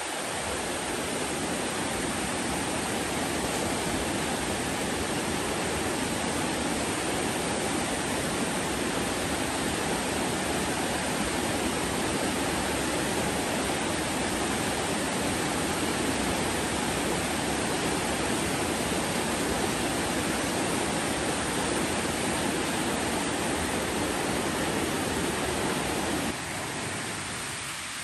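Steady rush of a fast mountain river's water, an even hiss without breaks that drops somewhat quieter near the end.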